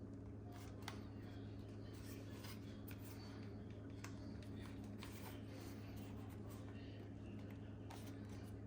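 Faint scattered clicks, scratches and rubbing as a replacement ear pad is worked onto a Bose QC35 plastic earcup, its edge tucked under the cup's small hooks, over a steady low hum.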